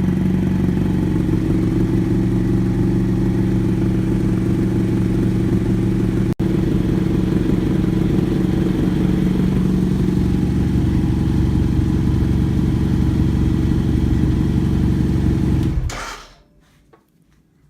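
BMW F800 GS Adventure's parallel-twin engine idling steadily through an aftermarket DanMoto carbon GP slip-on exhaust in a closed garage, with a momentary dropout just after six seconds. The engine is switched off about sixteen seconds in and the sound stops abruptly.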